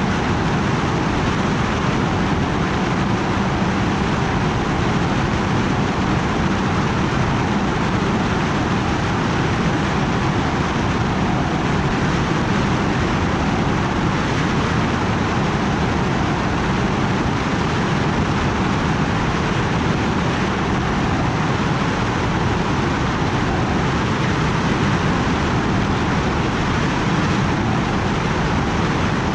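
Multirotor drone's motors and propellers running steadily in flight: an even whirring hum with a constant low drone underneath.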